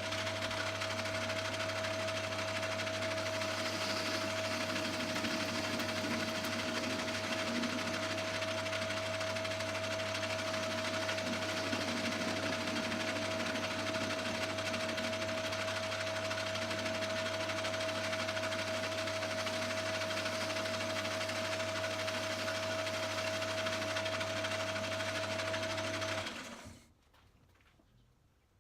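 A small bench machine tool's electric motor switches on and runs at a steady speed with a constant whine and low hum. About three-quarters of the way in it is switched off and quickly runs down.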